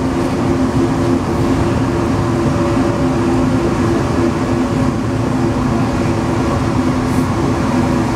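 Alstom NS-16 rubber-tyred metro train running at speed between stations, heard from the driver's cab: a steady running noise with a steady hum.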